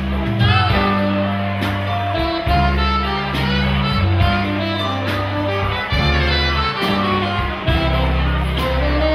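Live jazz band playing: an upright double bass plucks low notes under a saxophone melody, with regular drum hits keeping time.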